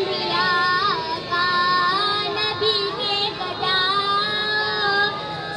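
A young boy singing a naat, an Urdu devotional poem, solo into a microphone, with long held notes that bend and waver in melodic turns.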